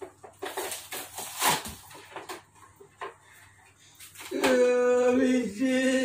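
Light clicks and rustles of a toy and its cardboard packaging being handled. About four seconds in, a loud held tone in a few steady notes starts and runs for about two seconds.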